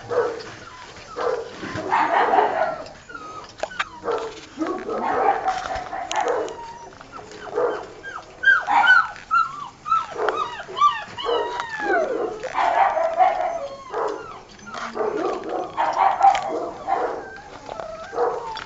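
Six-week-old Old Tyme Bulldog puppies yelping and barking, many short high cries that slide up and down in pitch, with a quick run of them through the middle.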